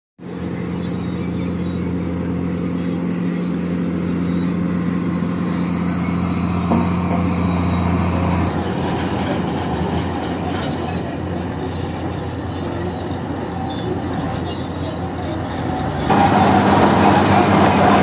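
Heavy diesel engines of construction machines running: a steady low drone at first, turning rougher about eight seconds in. About sixteen seconds in it gets clearly louder and harsher as a crawler bulldozer's engine and steel tracks come close.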